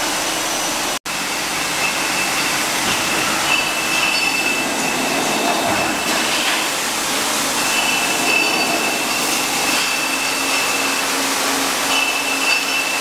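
Champagne neck-freezing and disgorging line machinery running: a steady loud mechanical noise with a high whine that comes and goes, over a low hum.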